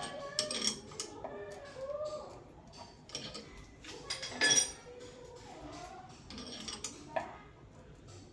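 Metal tools and small metal parts clinking as they are handled, a few sharp clinks with a short ring, the loudest about four and a half seconds in.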